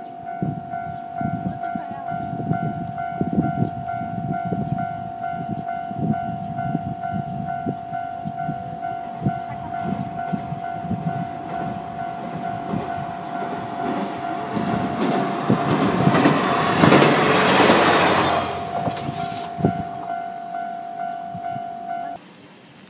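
A train crossing a steel railway bridge, its wheels clacking rhythmically over the rail joints, rising to a loud rumble as it passes closest about 15 to 19 seconds in. A steady high ringing tone sounds throughout.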